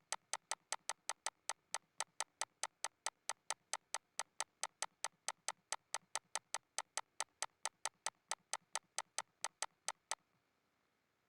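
Rapid, evenly spaced mouse-button clicks, about four to five a second, stopping about ten seconds in.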